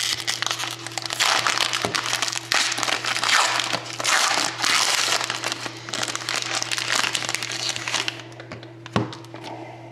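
Packaging of a hockey trading card box being crinkled and torn open by hand, a dense crackle that eases off about eight seconds in, then a single click near the end. A steady low electrical hum runs underneath.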